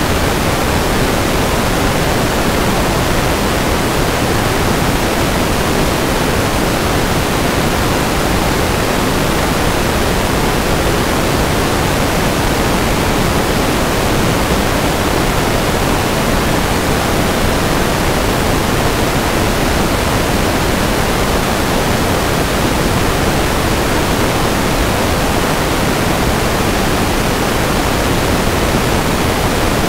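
Steady static hiss from an analog FPV video receiver picking up no signal, the sound of a lost video link.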